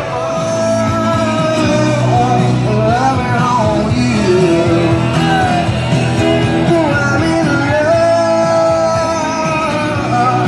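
Music with a singing voice over instruments: a rock-and-roll-style song with long held, sliding notes.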